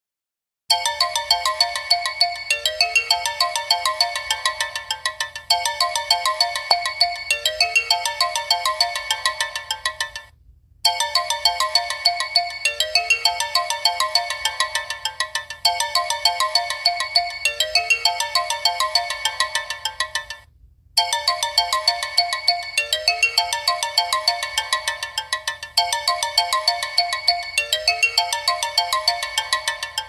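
Infinix Smart 6 incoming-call ringtone playing through the phone's speaker: a melody of quick repeated notes, starting about a second in. It is a loop of about ten seconds that plays three times, with a short pause between repeats.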